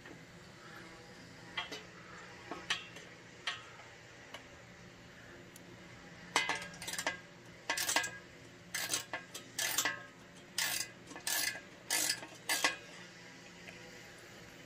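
Steel work table and its mounting hardware on an electric log splitter clinking and knocking as it is worked into place by hand. A few scattered sharp clicks, then a busier, irregular run of metal knocks and rattles from about halfway in until near the end.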